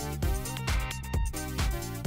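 Upbeat electronic background music with a steady beat.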